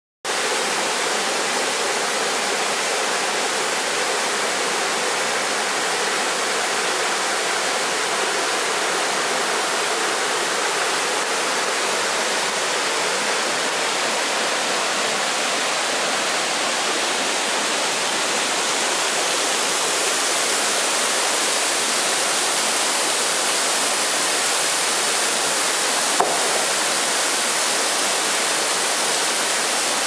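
Water rushing steadily over rocks in the stream and falls of the Bigăr waterfall, an even hiss that grows a little brighter about two-thirds through. One short click comes near the end.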